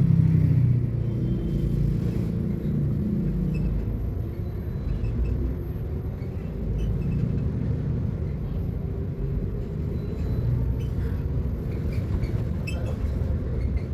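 Mercedes-Benz eO500U electric bus running: a steady low rumble, a little louder in the first couple of seconds, with a few light clicks and rattles near the end.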